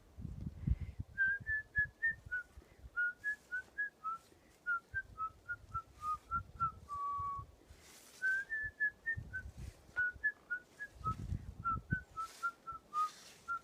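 A person whistling a melody by mouth in short, clear notes, played as two similar phrases that each end on a longer held low note.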